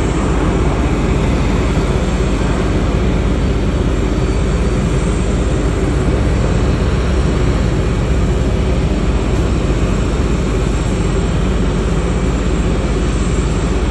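Loud, steady jet aircraft noise with a low rumble.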